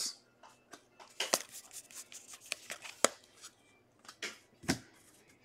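Baseball trading cards being handled and set down on a stack: a run of light, irregular clicks and taps, with a few sharper snaps.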